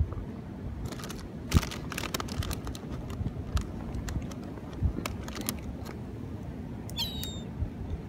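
Gulls calling, with one short, high call that falls slightly in pitch about seven seconds in, and a run of sharp clicks in the first few seconds.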